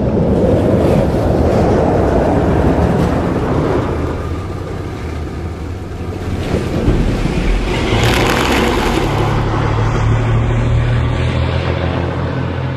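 RNLI Tamar-class lifeboat launching off its slipway into the sea: rushing water and surf, a sharp splash about eight seconds in, then the steady drone of its diesel engines as it gets under way.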